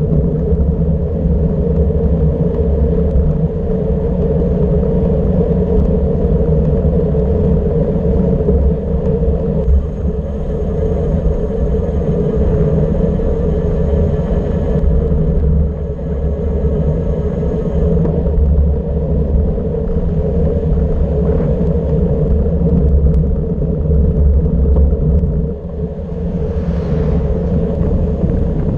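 Wind buffeting the microphone of a bike-mounted action camera, mixed with tyre noise on asphalt, on a road descent at about 40 km/h. The result is a loud, steady rumble that flutters in level.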